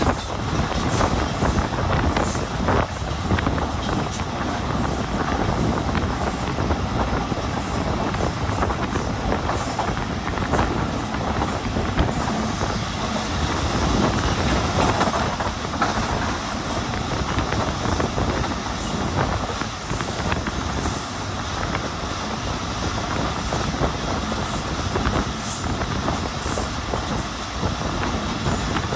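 Train running on rails: a steady rumble of wheels and carriages, with light clicks now and then.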